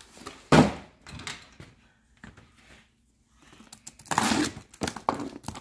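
Cardboard shipping boxes being handled: a single sharp thump about half a second in, then quiet, then a run of scraping and rustling of cardboard and packing tape near the end as the top box is gripped and its tape worked at.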